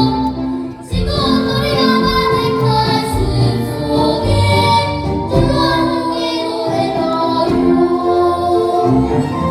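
Vocal ensemble singing a Korean children's song (dongyo) in chorus, with a short break between phrases about a second in.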